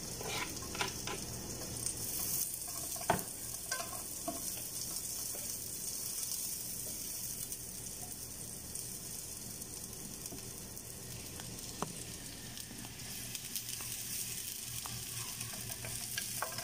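Chopped garlic sizzling in hot olive oil in a frying pan, a steady hiss, while a wooden spatula stirs it with light scrapes and taps on the pan. One sharper knock comes about three seconds in.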